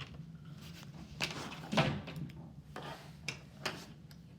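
LEGO plastic pieces being handled: a string of short clicks and rattles, with a louder knock a little under two seconds in.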